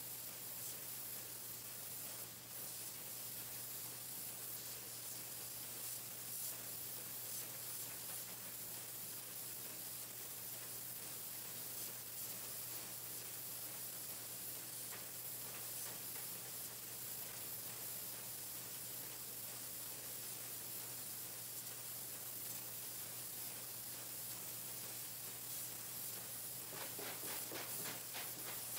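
Pencil painting machine running: a steady hiss over a constant low hum. Near the end comes a brief, fast rattle of clicks.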